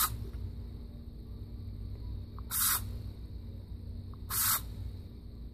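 Three short, sharp hisses, each about a quarter of a second long: one at the very start, one about halfway through and one about a second later.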